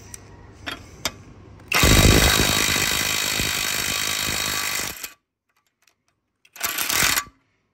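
Hercules 20V cordless impact wrench hammering a bolt tight in a bench vise. The loud rapid hammering starts about two seconds in and runs for about three seconds, then stops suddenly. A second short burst of hammering follows about a second and a half later.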